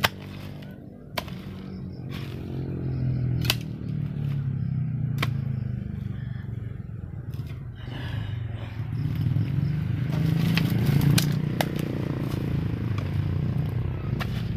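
A hoe chopping into damp soil, with a handful of sharp strikes a second or more apart. Under it runs the steady hum of a small engine, which grows louder about halfway through.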